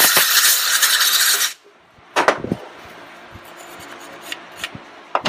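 Compressed-air blow gun hissing in a steady blast as it blows loosened carbon out of a turbocharger's vane area; it cuts off suddenly about a second and a half in. A few short scrapes and clicks of a hand tool against the metal follow.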